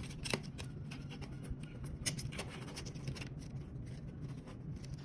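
Small plastic clicks and scraping as an SC fast connector on fibre drop cable is pushed into the plastic adapters of a fibre optic termination box and the cable is handled. Irregular, with a few sharper clicks.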